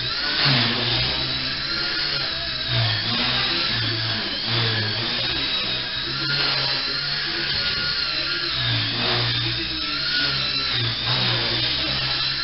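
Micro RC helicopter flying: its small electric motor gives a high whine, with a lower rotor buzz under it, and both rise and fall in pitch as the throttle changes.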